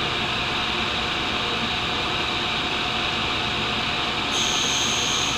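Tool and cutter grinder running steadily as it sharpens a carbide boring bar. About four seconds in, a brighter, higher hiss joins, as the carbide is lightly touched to the grinding wheel.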